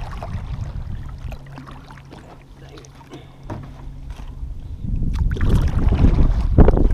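Double-bladed kayak paddle strokes splashing through lake water, with wind rumbling on the microphone. It goes quieter in the middle and louder again from about five seconds in, with a sharp knock near the end.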